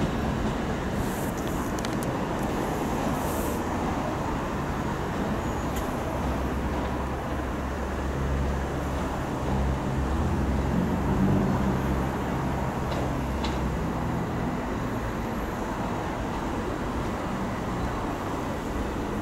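Steady outdoor rumble of a departing Southeastern electric multiple unit and road traffic, with a low hum that swells and fades between about seven and fifteen seconds in.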